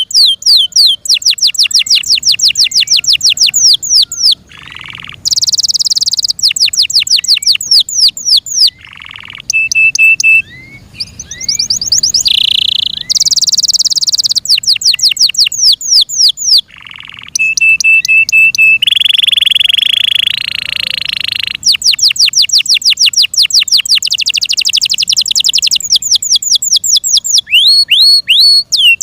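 F1 Yorkshire canary singing a long, loud song: fast trills of rapidly repeated downward-sweeping notes, broken every few seconds by buzzy phrases and short steady whistles.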